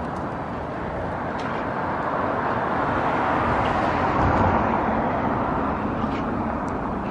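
Road traffic noise: a vehicle passing, its tyre and engine noise swelling to a peak about four seconds in and then fading.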